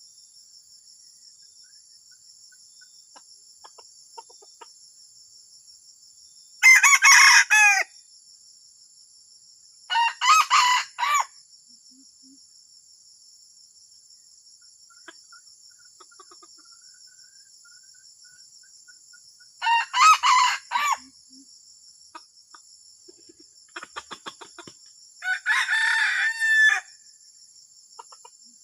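Junglefowl crowing four times, each crow one to one and a half seconds long and several seconds apart, over a steady high buzz of insects. It is the strange-sounding provoking crow used as a lure call.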